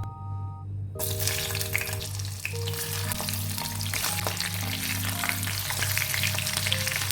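Food frying in hot oil in a pan, sizzling and crackling; the sizzle starts suddenly about a second in, as if food has just gone into the oil.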